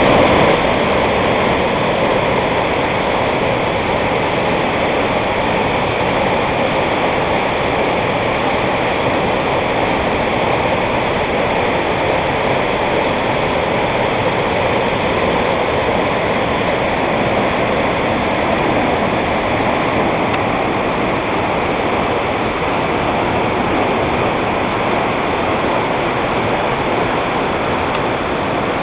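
A tall waterfall falling onto rocks: a steady, loud rush of water.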